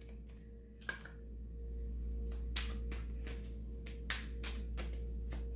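Irregular soft clicks and taps of tarot cards being handled, several a second, over a steady low hum.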